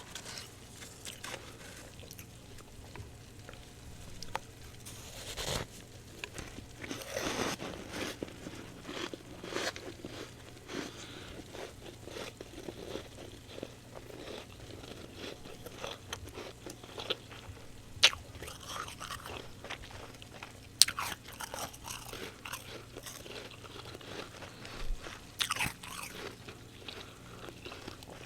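Crunching and chewing of fresh frost, an irregular run of crisp crunches with two sharp, louder snaps in the second half.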